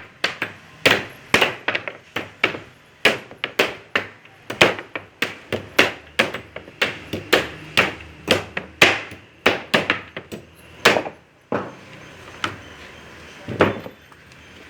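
Repeated hammer blows on wood, about two strikes a second, then thinning to a few scattered strikes near the end.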